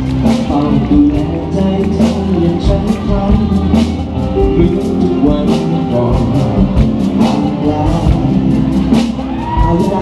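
Live band music played through a stage PA: singing over a steady drumbeat, electric bass and keyboard.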